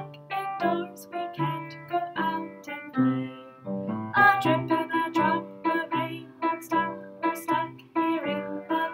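A woman singing a song while accompanying herself on a Yamaha upright piano, the piano's notes and chords struck in a steady rhythm about twice a second.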